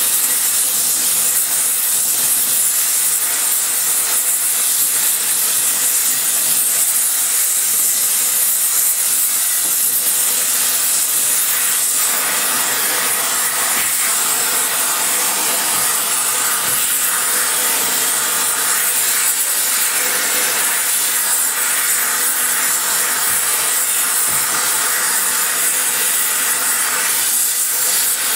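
Spray welding torch flame hissing steadily while it is played over a combustion chamber of a red-hot cast iron Ford FE 390 cylinder head.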